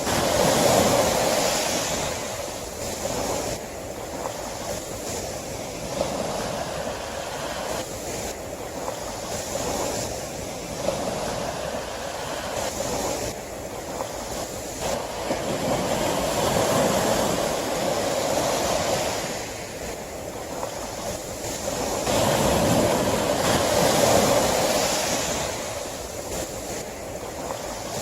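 Sea waves breaking and washing ashore in slow swells that rise and fall every few seconds, loudest just after the start and again about two-thirds of the way through.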